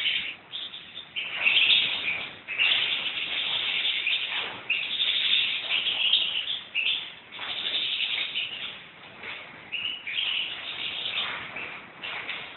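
European goldfinch singing in phrases of a second or two each, with short breaks between them.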